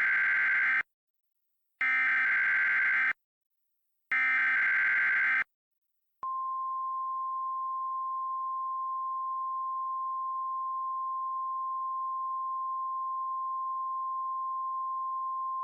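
Emergency Alert System SAME header: three short bursts of screeching modem-like data, about a second each with a short gap between them. About six seconds in comes the National Weather Service's single steady 1050 Hz alert tone, which signals that a new weather alert is about to be read.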